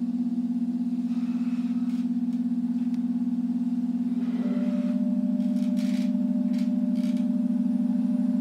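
Balloon organ pipes sounding a steady drone of sustained low tones with a slight pulse. A higher tone joins about four and a half seconds in, with a few faint clicks and rustles over the drone.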